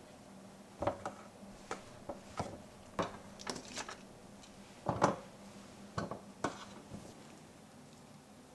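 Dishes and utensils clinking and knocking in about a dozen irregular strikes, the loudest about five seconds in.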